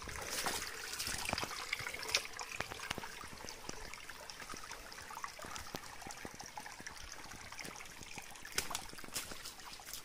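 Shallow stream trickling over stones, with scattered clicks and knocks of footsteps on wet rocks and gravel in the stream bed.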